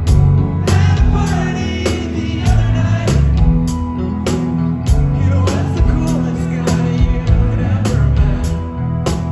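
Live rock band playing, with a steady drum beat of about two hits a second over heavy bass and guitar.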